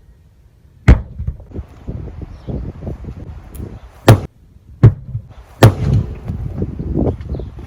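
Four loud, sharp impacts of a heavy dumbbell swung on a rope, about a second in, then three more close together after about four seconds, with lower scuffing noise between them.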